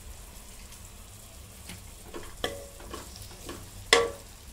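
Chopped vegetables sizzling in oil in a kadai while a spatula stirs them, scraping and clicking against the pan, with one sharp knock near the end. A low steady hum sits underneath.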